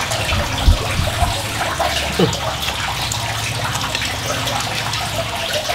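Steady rush of running water, with a low hum underneath and two dull thumps about a second in.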